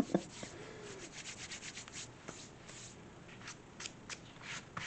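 Fingers rubbing and smoothing paper on a craft page: a quick run of short scratchy strokes that thins out to a few scattered ones after about three seconds.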